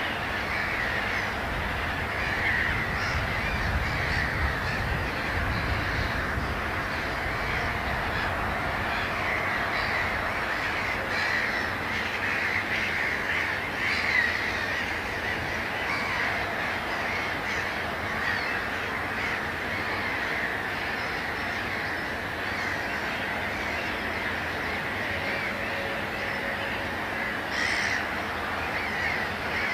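Wetland bird chorus: many birds calling at once, a steady, dense mass of overlapping calls, with a low rumble in the first few seconds and one louder call near the end.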